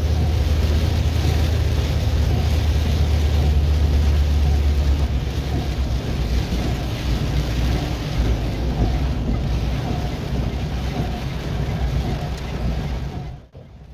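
Car driving on a rain-soaked road, heard from inside the cabin: a steady low engine and road drone under the hiss of tyres and rain on wet asphalt. The low drone eases about five seconds in, and the sound cuts off abruptly near the end.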